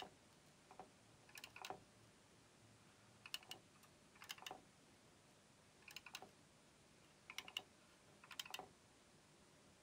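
Keys on the hex keypad of a homebuilt Elektor SC/MP computer being pressed one at a time: light clicks, often in pairs, roughly once a second while a program is keyed in.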